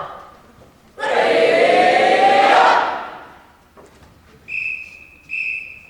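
A group of voices shouts together for about two seconds. Near the end, a whistle gives two short, steady high blasts.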